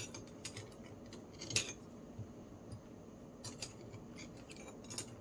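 Metal clinks and taps of a steel wrench being fitted and worked on a nut on the axle of a Sturmey-Archer S3B hub. The nut is stuck and will not turn. A few sharp clicks are scattered through, the loudest about one and a half seconds in.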